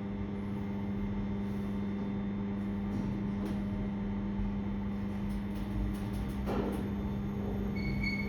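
Passenger lift car travelling upward: a steady hum of the lift drive over a low rumble, with a short high beep near the end as it nears the floor.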